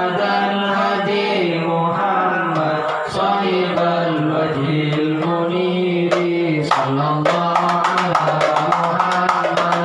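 Male voices chanting an Arabic salawat (blessings on the Prophet Muhammad). About seven seconds in, hand-held frame drums start beating under the chant in a quick, even rhythm.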